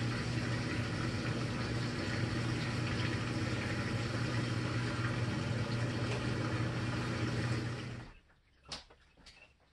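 GE GTW335A top-load washing machine running with a steady hum and rush, which stops abruptly about eight seconds in. A couple of faint clicks follow as the machine sits quiet between stages of its cycle.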